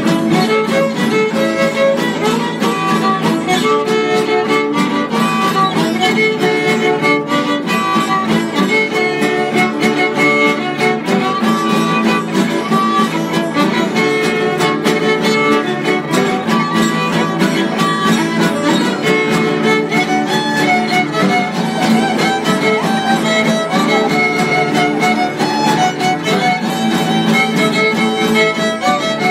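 Instrumental folk trio: a violin playing the melody over two strummed acoustic guitars, in a steady rhythm with no singing.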